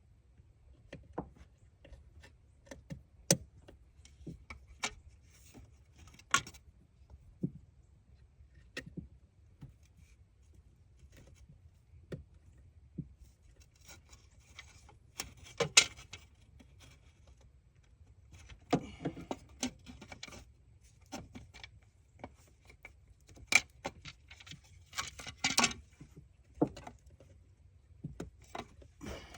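Irregular clicks, knocks and short metallic rattles of hand tools and small parts being handled, with a few louder clacks and a faint steady low hum underneath.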